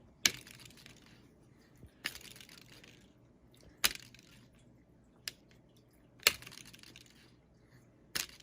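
Sharp plastic clicks and short clatters of Elefun and Friends Mouse Trap game pieces, about six of them spaced a second or two apart, a couple with a brief rattle after the click.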